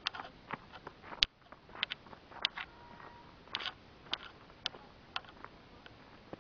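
Handling noise from a handheld video camera: a run of irregular sharp clicks and taps, with one louder knock about a second in.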